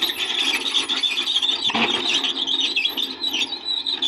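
Excavator steel on steel: a continuous harsh scraping and grinding with wavering high squeals, as the excavator arms and bucket rub and press against each other.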